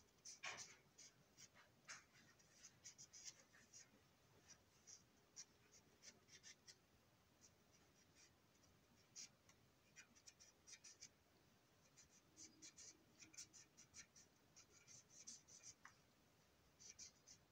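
Faint, irregular scratchy strokes of a coloring tool drawn along the molded ribs of a plastic toy train box car, like a pen writing.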